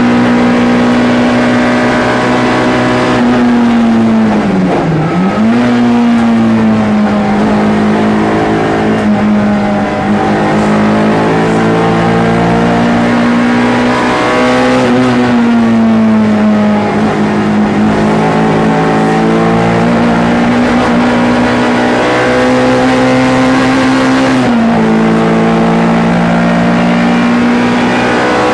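MG ZR 105 race car's 1.4-litre four-cylinder engine running hard at high revs, its pitch held nearly steady for long stretches. About five seconds in the pitch falls quickly and then jumps back up, and near the end it steps down as the car changes gear.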